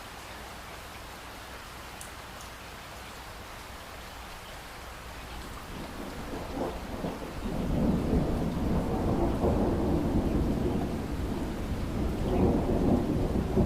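Steady rain falling, then a low rumble of thunder builds in from about six seconds in and keeps rolling, swelling again near the end.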